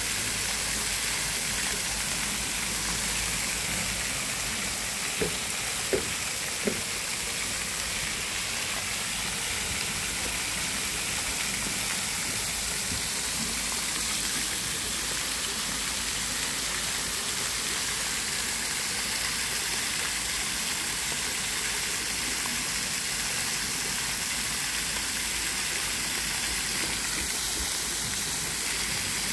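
Several small fountain jets spraying up and splashing back onto a shallow pond: a steady hiss of falling water. Three short taps a little over five seconds in, under a second apart.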